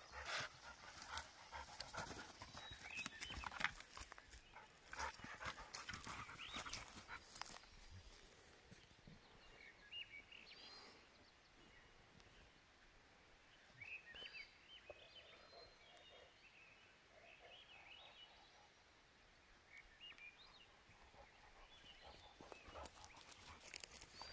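Dogs panting and sniffing at a pile of split firewood, with knocks and scuffs of paws and shifting wood through the first several seconds. After that it goes quieter, with scattered faint, short high chirps.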